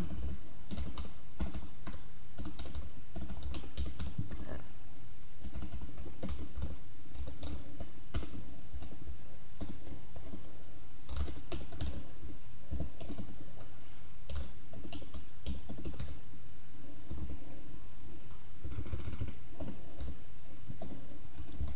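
Typing on a computer keyboard: uneven runs of keystrokes with short pauses between them.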